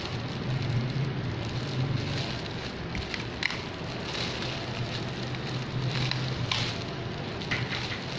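Packaging being cut and unwrapped by hand: crinkling and rustling with a few sharp clicks, over a steady low hum.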